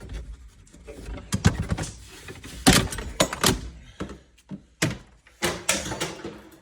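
An irregular series of knocks, clunks and bangs from hands-on mechanical work on a car, about a dozen impacts of varying loudness.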